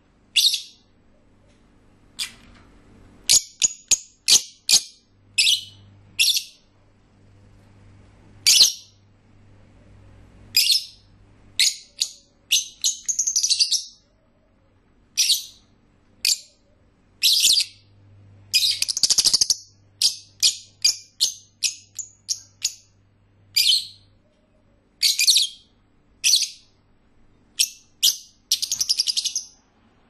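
Pet lovebirds chirping: rapid, shrill, high-pitched chirps, some single and some in quick runs and chattering bursts, coming irregularly with short gaps.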